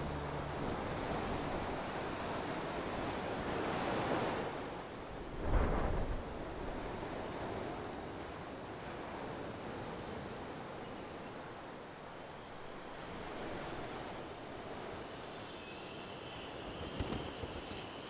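Steady wash of ocean surf and wind, swelling louder once about five and a half seconds in. Faint, short, high-pitched seabird calls come through now and then, more of them near the end.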